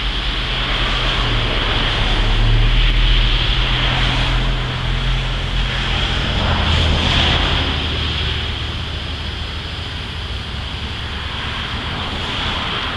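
Steady rush of passing highway traffic with a low rumble, mixed with wind buffeting the microphone.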